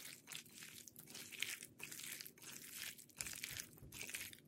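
Wet squelching of a bare hand squeezing and mixing raw chicken pieces through a thick yogurt-and-spice marinade in a glass bowl, in repeated strokes about twice a second.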